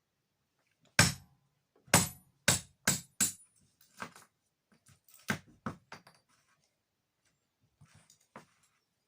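A series of sharp knocks and taps at irregular intervals, about ten in all, the loudest near the start and fainter ones later, typical of hand work during a renovation.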